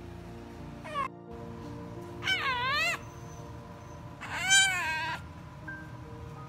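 French bulldog puppy whining and complaining: a short cry about a second in, then two longer high whines that waver up and down in pitch, the last one the loudest, over background music.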